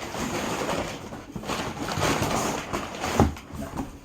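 Hands rummaging through a cardboard shipping box, packing material rustling and scraping, with a single knock a little after three seconds in.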